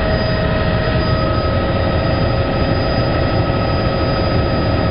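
Helicopter running: a steady rumble of rotor and engine noise with a constant high whine over it.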